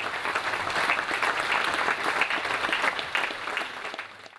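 Audience applause, many people clapping together, dying away near the end.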